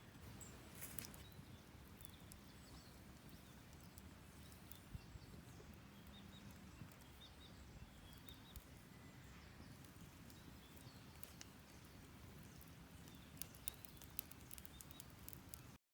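Wood fire crackling faintly, with scattered sharp pops and ticks over a low, steady background noise.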